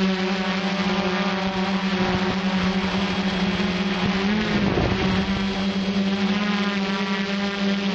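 RC quadcopter's motors and propellers buzzing steadily in flight at one even pitch. About halfway the pitch briefly bends up and down, with a short rush of air noise.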